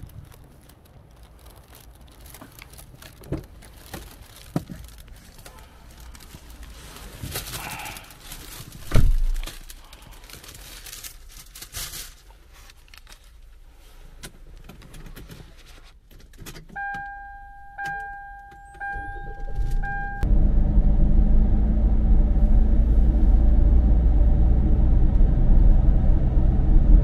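Small knocks and handling noises with one loud thump about a third of the way in, then four short electronic chime beeps about a second apart from the Kia Carnival R. The minivan's engine then starts and runs steadily as a low rumble for the last quarter.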